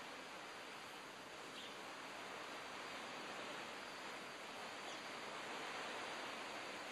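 Steady, faint outdoor background noise: an even hiss that grows slightly louder toward the end.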